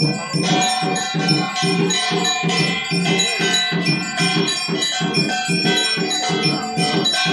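Loud devotional music with a fast drumbeat, about three to four beats a second, and bells ringing steadily over it.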